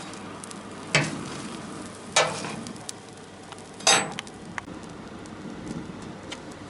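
Coal forge fire hissing and crackling steadily while a horseshoe heats in it, with three sharp metal clinks about one, two and four seconds in; the last one rings briefly.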